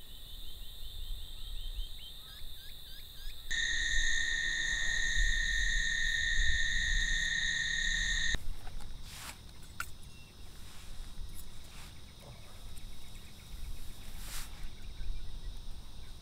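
Insects droning in a steady shrill chorus that changes abruptly twice at cuts between shots. It is loudest from about three and a half seconds to about eight seconds, and fainter after that.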